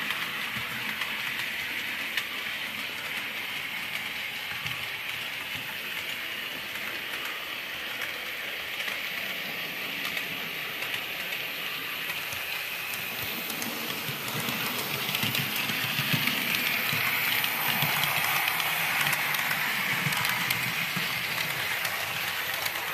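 Model railway trains running on track: the whirr of a Bachmann model locomotive's motor and the fine clicking of small wagon wheels over rail joints, growing louder about two thirds of the way through as a rake of autoballaster wagons passes close.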